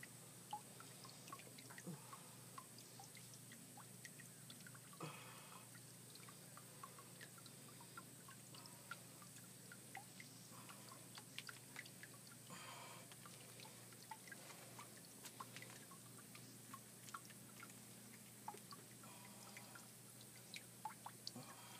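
Near silence, with faint scattered small clicks and wet ticks.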